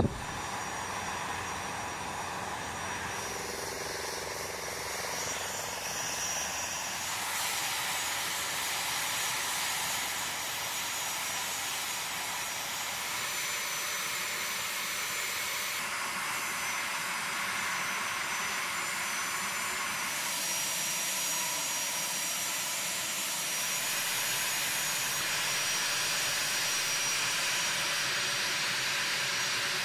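Steady high whine and hiss of jet turbine engines running on an airfield flight line. Its tone shifts slightly every few seconds.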